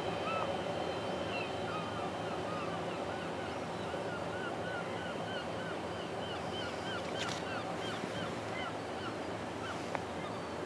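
Birds giving many short chirps that rise and fall, several a second, over a steady low machinery hum.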